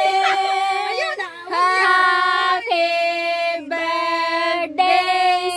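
A high, child-like singing voice holding long, steady notes of about a second each, one after another.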